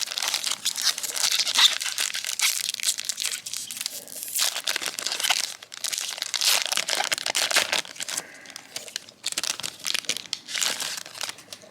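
Foil booster-pack wrapper being torn open and crinkled in irregular bursts of crackling, with short pauses between handlings.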